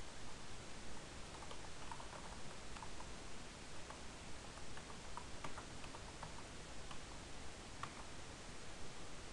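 Computer keyboard being typed on: faint, irregular key clicks, some in quick clusters, over a steady hiss.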